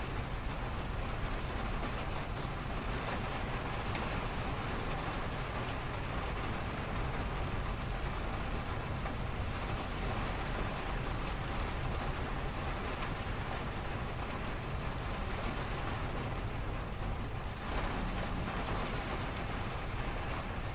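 Steady rain pattering on a window, with a low rumble of freeway traffic underneath.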